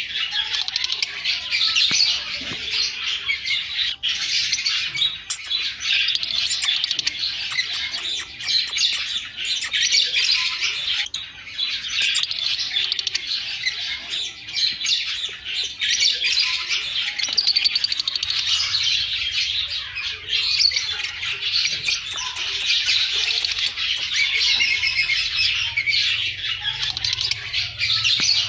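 Many lovebirds chirping together in a dense, unbroken chatter of short high calls.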